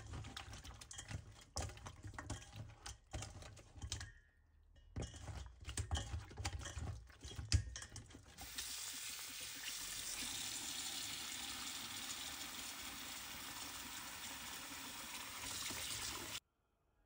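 Hands rubbing and handling raw fish pieces in a stainless steel bowl, making irregular wet clicks and knocks against the metal. About eight seconds in, a tap starts running water into the bowl, a steady rush that stops abruptly near the end.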